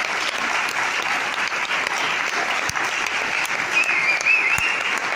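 Audience clapping, dense and sustained, with hands clapping close by. A short high-pitched wavering sound rises above the clapping about four seconds in.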